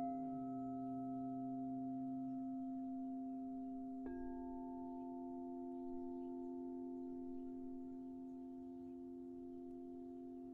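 Crystal singing bowls ringing with long, steady tones after being struck with a mallet. A second bowl is struck about four seconds in and rings on with the first, the blended tones fading slowly.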